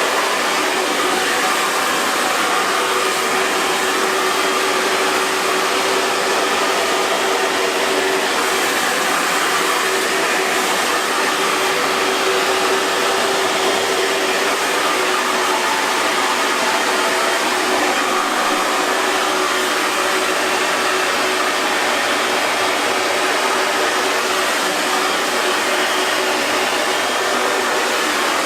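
Hair dryer running steadily: an even rush of blown air over a faint motor hum that never changes.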